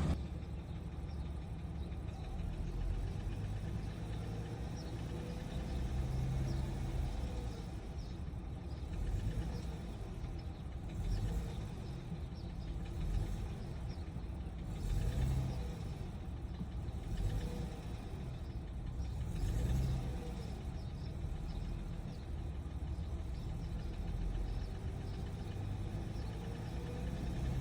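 Audi 3.0 TFSI (CREA) supercharged V6 running cold with a knock. The level swells and eases every couple of seconds.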